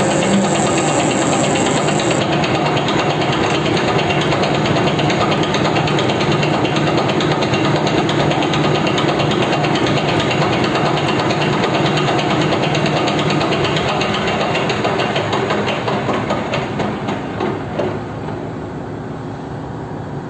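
Metal lathe running while a single-point tool cuts an external thread on a bar: a steady machine hum with cutting noise over it. It quietens over the last few seconds as the cut ends.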